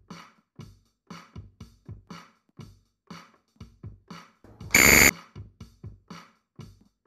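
Quiz countdown-timer sound effect: a fast, even electronic ticking beat. About five seconds in, a short, loud alarm-like beep sounds as the timer runs out.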